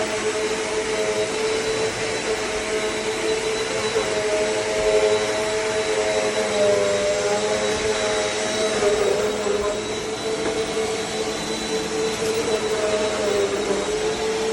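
Eureka NEU10AE4 AirSpeed bagless upright vacuum cleaner running continuously, a steady motor whine and airflow rush whose hum wavers slightly in pitch partway through.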